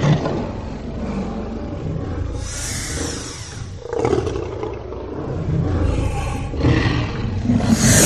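Dinosaur roar sound effect: a deep, growling roar that swells and eases several times, with the strongest surge near the end.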